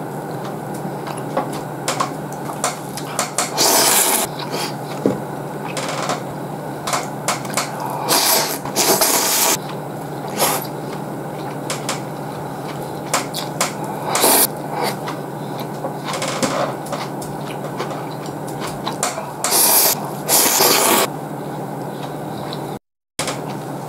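Ramen noodles being slurped and chewed, several loud noisy slurps with small clicks of chopsticks against the bowl in between, over a steady low hum. The sound cuts out for a moment near the end.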